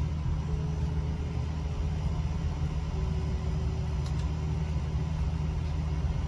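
Air conditioner running with a steady low hum.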